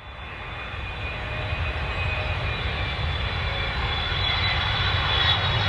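Aircraft engine noise growing steadily louder: a low rumble with a steady high whine on top.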